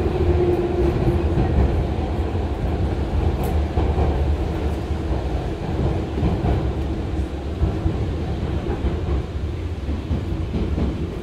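Running noise inside a resistance-controlled Hanshin 5001-type 'Jet Car' commuter car: a steady low rumble from wheels and running gear, with a motor hum that sinks slightly in pitch over the first couple of seconds.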